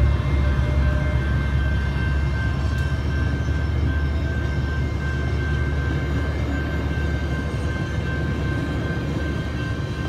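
Metrolink bilevel passenger coaches and their trailing Hyundai-Rotem cab car rolling through a grade crossing: a steady low rumble of wheels on rails that slowly eases as the last car goes by. Over it, the crossing's warning bell rings in steady high tones.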